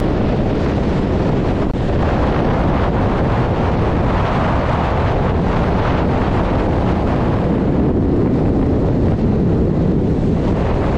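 Strong storm wind buffeting the microphone in a steady, loud rush, with waves breaking and washing over the rocks and stone paving of a sea dike underneath.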